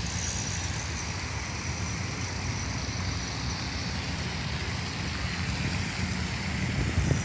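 Steady outdoor background noise: a low, flickering rumble with an even hiss over it.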